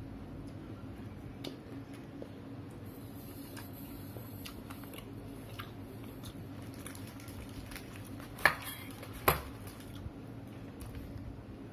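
Tabletop handling noises: a spoon and stainless steel bowl, a paper food box and a plastic bag being moved about, with scattered light clicks and two sharp knocks less than a second apart about two-thirds of the way in. A low steady hum runs underneath.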